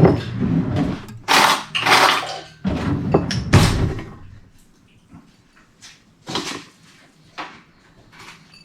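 Tableware being handled at a table: a run of loud scraping, rattling knocks over the first four seconds, then only a few faint clicks.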